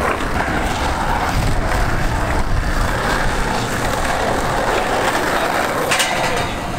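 Skateboard wheels rolling on concrete, then a sharp clack about six seconds in as the board lands on a round metal rail and slides along it.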